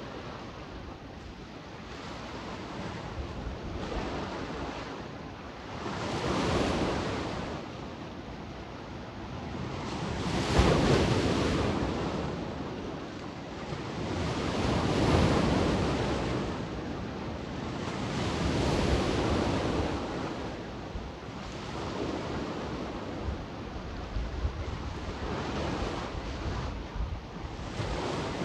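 Adriatic sea waves washing onto the shore. Each surge swells and ebbs about every four seconds, and the biggest comes about ten seconds in. Wind rumbles on the microphone underneath.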